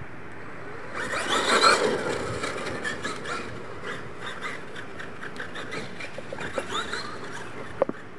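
Radio-controlled monster truck driving hard on loose dirt. Its motor and drivetrain whine rises and falls as it accelerates, and the tyres scrabble and throw dirt. The run starts loudest about a second in, and there is a sharp click near the end.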